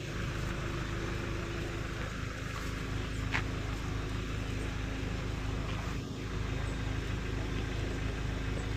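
Engine of a parked box truck idling, a steady low hum with a faint even tone over it, and one short click about three seconds in.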